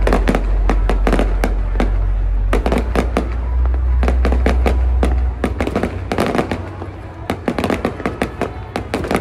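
Aerial fireworks going off in rapid, irregular pops and crackles, many bursts overlapping, over a deep low rumble that weakens about five seconds in.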